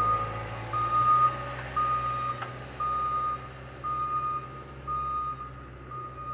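Skid-steer loader backing up, its reverse alarm beeping about once a second over the steady hum of its running engine.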